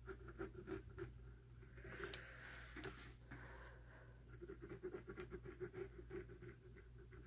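Coloured pencil scratching faintly on sketchbook paper in quick back-and-forth strokes as an area of a drawing is coloured in.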